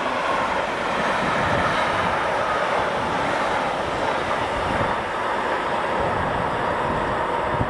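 Freight wagons carrying shipping containers and tank containers rolling past on the track, a loud steady noise of wheels on the rails with no break.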